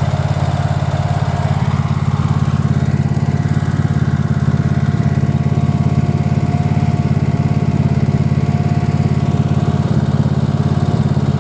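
Generac GP17500E portable generator's OHVI gasoline engine running steadily, a constant low engine hum with a faint steady higher tone above it.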